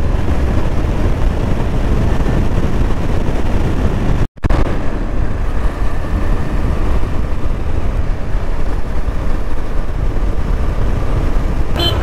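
Steady wind rush and road noise from riding a KTM 390 Adventure motorcycle at speed, heavy in the low end. The sound cuts out completely for a moment about four seconds in.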